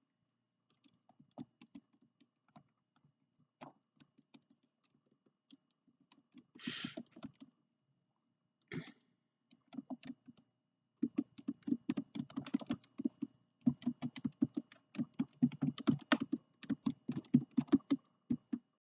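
Typing on a computer keyboard: scattered key clicks at first, then rapid, steady typing through the second half. A brief rustle comes about seven seconds in.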